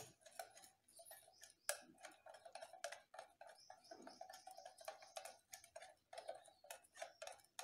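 Wire whisk beating gram-flour batter in a glass bowl: faint, quick, irregular ticking as the wires knock against the bowl.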